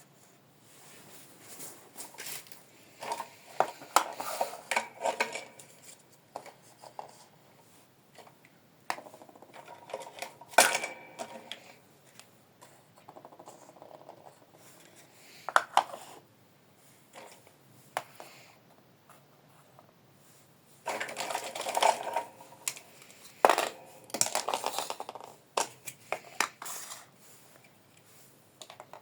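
Small plastic toy kitchenware being handled: irregular clicks and taps of hard plastic pieces set down and knocked together, with bouts of rustling packaging.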